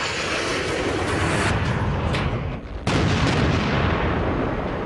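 A steady, loud jet engine roar during a takeoff run, then, nearly three seconds in, a sudden blast of a battleship's big guns firing, with heavy rumbling after it.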